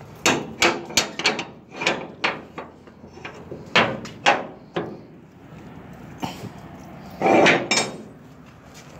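A run of sharp knocks and taps in irregular clusters, then a louder rough burst about seven seconds in.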